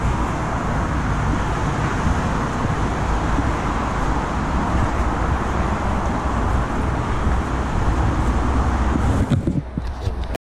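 Steady rumble of road traffic noise, dipping in level near the end.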